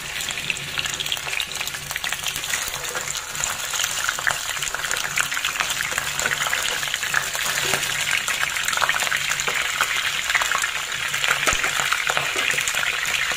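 Pomfret pieces sizzling and crackling as they fry in hot oil in a frying pan.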